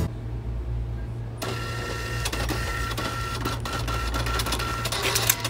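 IBM point-of-sale receipt printer printing a long customer receipt. It starts about a second and a half in as a steady mechanical whirr with a thin whine and rapid clicking, and ends near the end with a sharp click. A steady low hum runs underneath.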